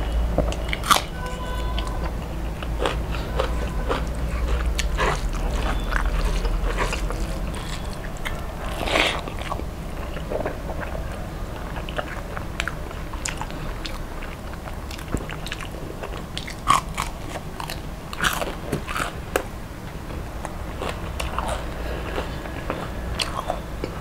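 Close-miked chewing and crunching of crispy deep-fried rohu fish and rice, with many irregular wet mouth clicks and smacks.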